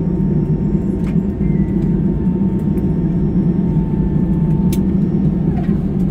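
Steady low cabin rumble inside an Airbus A320 taxiing on the ground, with a faint steady whine above it.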